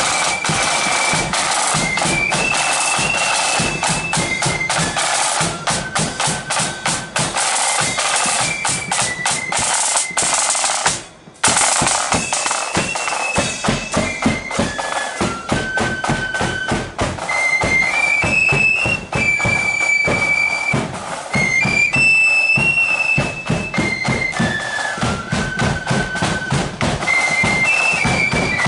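Marching flute band playing a tune on flutes over snare and bass drums beating the march. The sound drops out for a moment about eleven seconds in.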